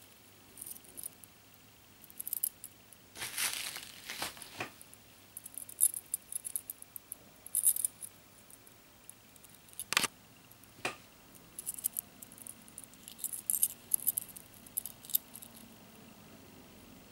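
Thin metal necklace chain jingling and clinking in short bursts as it is handled, with a longer crinkly rustle of plastic bubble wrap about three seconds in and two sharp clicks around ten seconds.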